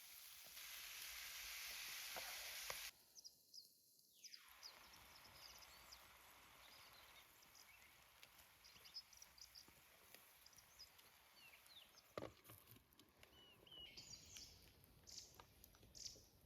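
Quiet forest ambience. A faint hiss stops abruptly about three seconds in, followed by scattered small clicks. In the last few seconds a small bird chirps several times.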